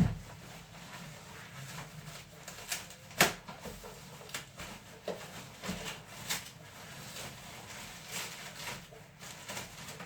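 Handling noises while unpacking the system: scattered light clicks, knocks and rustles of things being moved and set down, with one sharp knock about three seconds in.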